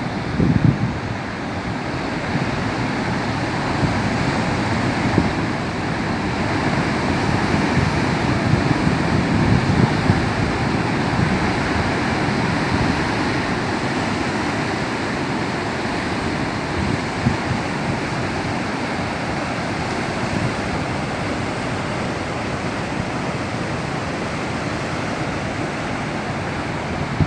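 Rough, choppy sea: waves breaking and churning against the shore in a continuous wash that swells and ebbs, with heavier surges rumbling in every few seconds. Some wind buffets the microphone.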